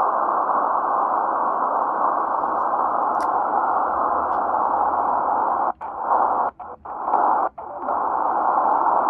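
Shortwave static hissing from a Tecsun PL-330 receiver tuned in upper sideband on the 40 m band, with no signal on the frequency. In the last few seconds the audio cuts out briefly several times as the dial is turned: the muting chuff this radio gives while tuning.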